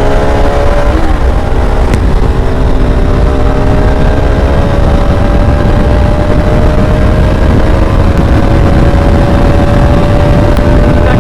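Bajaj Pulsar RS200's single-cylinder engine pulling hard at speed. After a change near the start, its pitch climbs slowly and steadily, under a heavy wind rumble on the microphone.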